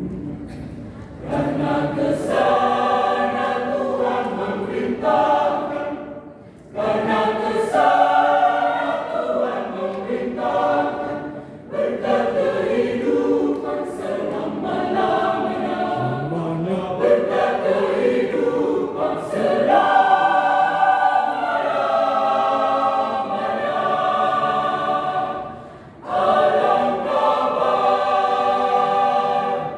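Choir singing together in several voices, in long phrases with short breaks between them.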